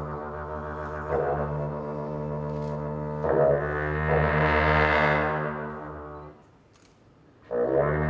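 Tibetan dungchen long horns blowing a low, steady drone rich in overtones, swelling louder in the middle. The blast dies away about six seconds in, and after a short gap a new blast starts abruptly near the end.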